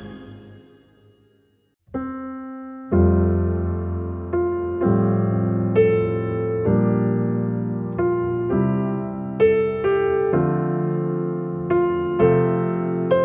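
Piano music: after a brief near-silence, slow chords begin about two seconds in, each struck and left to ring and fade, with a new chord about every second.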